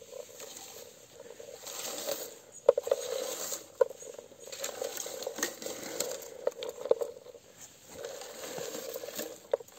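A homemade wooden berry comb with wire tines raked through bilberry bushes in repeated strokes: leaves rustle and berries patter into the scoop, with scattered sharp clicks.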